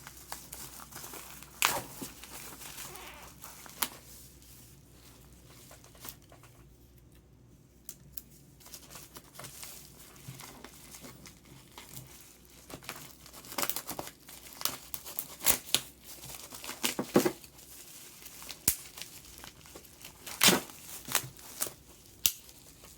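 Packaging being handled during unboxing: irregular crinkling, crackling and tearing of the packing material, with a few sharper clicks and knocks. It goes quiet for a few seconds about four seconds in, then picks up again, busier, in the second half.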